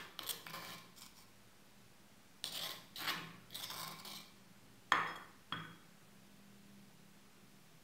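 A utensil scraping ground sesame-seed and garlic paste out of a dish and clinking against it: several short scrapes, then two sharp knocks about five seconds in.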